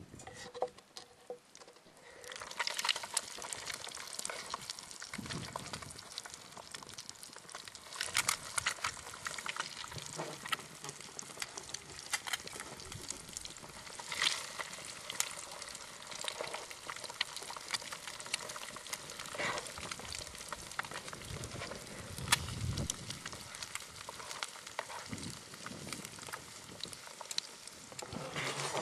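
Eggs frying in bacon grease: a steady sizzle with crackling pops, louder from about two seconds in, with a spatula scraping the pan now and then.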